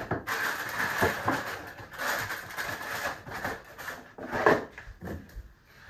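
Rustling and small knocks of packing items being handled, with one louder knock about four and a half seconds in.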